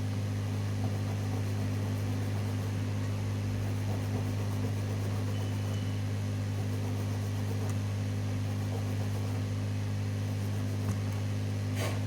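Steady low electrical hum with faint hiss and an occasional soft tick.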